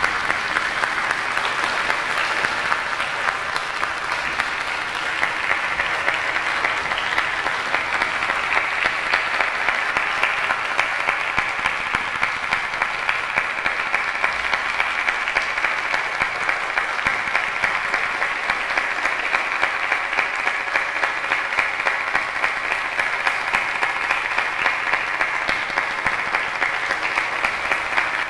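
Theatre audience applauding a curtain call, the clapping falling into rhythmic unison at about three claps a second.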